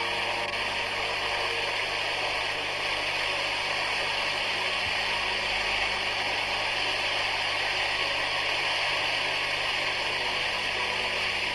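A steady, even rushing noise with a faint low hum underneath, unchanging throughout.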